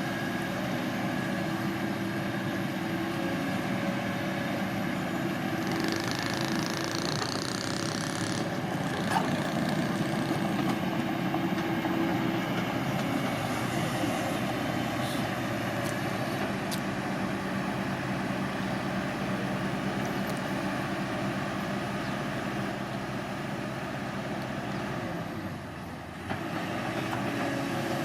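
Bulldozer's diesel engine running steadily under work. A brief high whine comes in about a quarter of the way through, and a single sharp click a third of the way. Near the end the engine dips for about a second, then picks back up.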